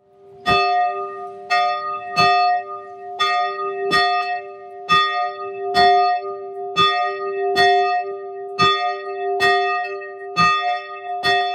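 A church bell tolling, about a dozen strokes at roughly one a second. Each stroke sounds the same pitch and rings on into the next.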